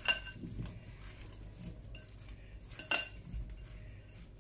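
Raw potato wedges being tossed by hand in oil and seasoning in a ceramic mixing bowl: soft, quiet shuffling of wet potato, with two sharp clinks against the bowl that ring briefly, one at the very start and one about three seconds in.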